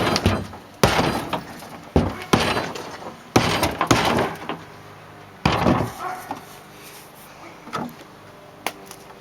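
Wood being pried and broken out of a jon boat during gutting: several sharp bangs and cracks at uneven intervals, some trailing off in a crackling rattle.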